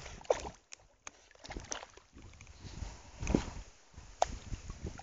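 A Chesapeake Bay Retriever puppy swimming, its paws paddling and splashing the water in irregular bursts.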